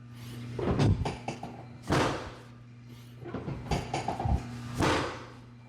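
Chiropractic drop table: its sections drop under the adjuster's thrusts, making a few sharp thuds about two seconds in and near the end, with lighter clacks between.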